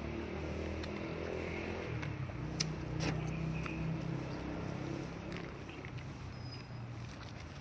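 A passing motor vehicle's engine hum, swelling about three seconds in and fading away after about five seconds, with scattered light clicks.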